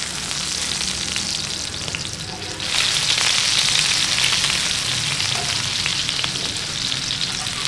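Zucchini strips shallow-frying in ghee on a flat griddle (tawa): a steady sizzle with small crackles and ticks, growing louder and brighter a little under three seconds in.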